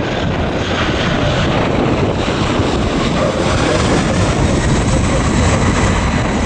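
Airplane engine noise: a steady, loud rumble that holds even throughout.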